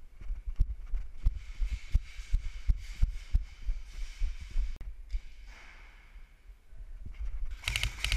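Dull thumps of running footsteps jolting a body-worn camera, a few each second, then a quick rattle of sharp bursts near the end.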